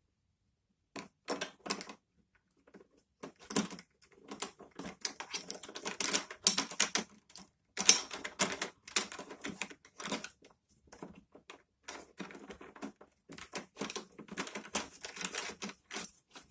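Rapid, irregular clicking and rattling of the mower's handle fastener as it is tightened by hand, joining the upper handle to the lower handle.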